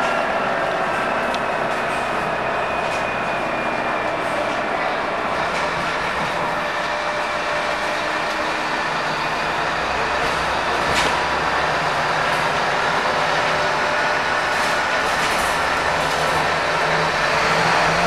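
Interior sound of a Scania K230UB bus under way at a steady pace: the rear-mounted five-cylinder diesel engine droning with road and tyre noise, and a few light rattles from the body and fittings. The drone gets a little louder near the end.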